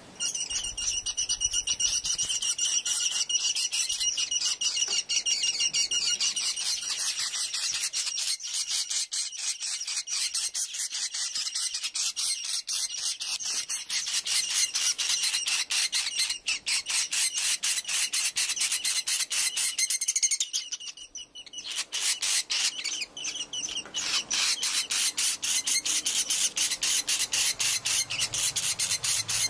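Swiftlets calling: a fast, even train of chirping clicks with a steady high whistling tone over it for the first several seconds. It drops away briefly about 21 seconds in, then starts again.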